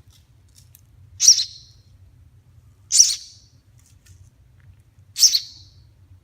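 Baby bird giving three loud, short, high-pitched chirps about two seconds apart: the begging calls of a hungry nestling being hand-fed.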